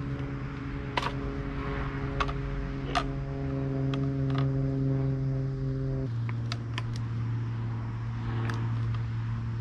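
Scattered sharp plastic clicks as zip ties are threaded and pulled tight around a rod holder on a folding wagon's frame, over a steady low hum that drops slightly in pitch about six seconds in.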